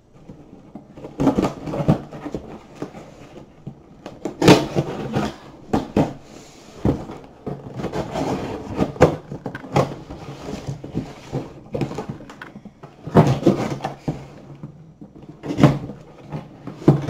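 A long cardboard shipping box being handled and opened on a wooden tabletop: irregular knocks and thumps as it is tipped up and set down, with scraping and rustling of cardboard in between.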